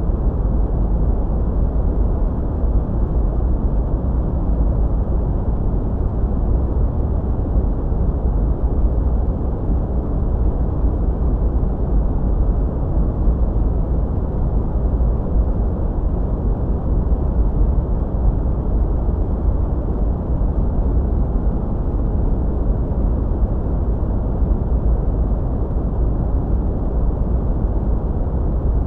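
Steady sleep noise track: a deep, muffled rush weighted to the low end, with no high hiss and no changes.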